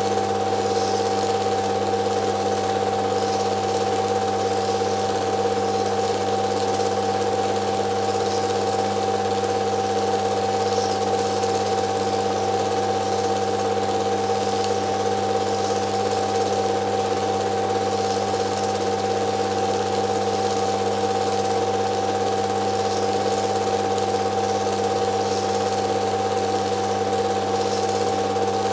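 Film projector running: a steady mechanical hum and whir that never changes.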